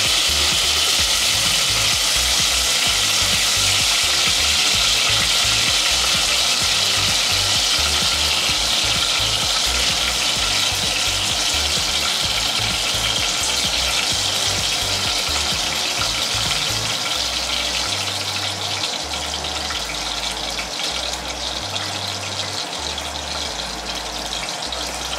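Potato-starch-coated pork pieces frying in shallow oil in a pot: a steady, dense sizzle that grows somewhat quieter in the last several seconds.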